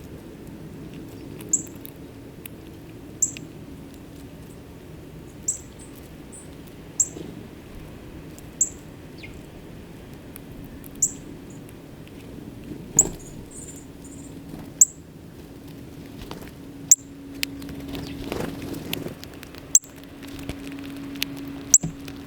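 Small bird giving single sharp, high chip calls, one every second or two, about a dozen in all, over a faint steady low hum.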